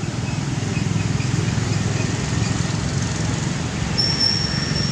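Steady outdoor rumble and hiss, with no clear single source. About four seconds in, a thin, high, steady whistle-like tone starts and holds to the end.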